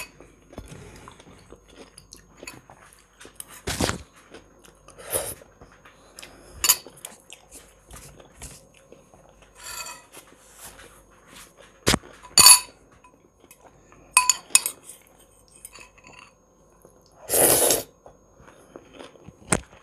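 A fork clinking and scraping against a ceramic salad bowl, with chewing of fresh cucumber-and-tomato salad, in scattered short taps and clicks. About three-quarters of the way through comes a louder noise lasting about half a second.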